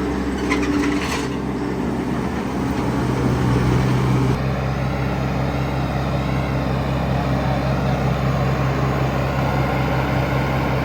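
An engine running steadily at a constant speed, a low hum throughout, with a few light clicks about a second in.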